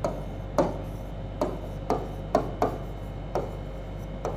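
Pen tip tapping and scratching on the glass of an interactive display board while words are handwritten: irregular short ticks, about two a second.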